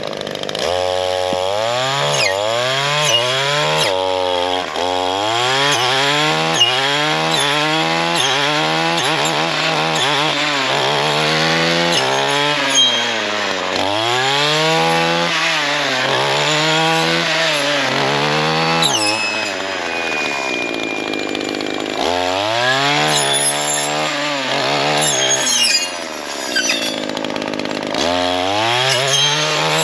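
Gas trimmer with a geared saw-blade attachment, its engine revving up and down over and over as the blade cuts into privet and wisteria brush. Sharp clicks and snaps of the blade striking woody stems come several times in the second half.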